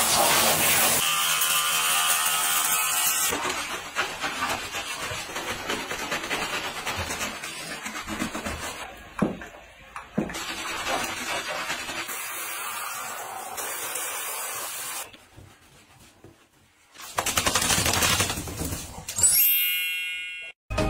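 Water spraying from a handheld shower head onto a dog's coat, in several short cut-together stretches, with a brief gap of near silence about three quarters of the way through. A short electronic sound effect with falling tones comes just before the end.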